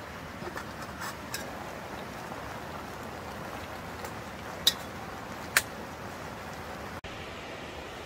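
A metal ladle clinking sharply against an aluminium camping pot, two louder clinks about halfway through and a few lighter ones earlier, over a steady hiss.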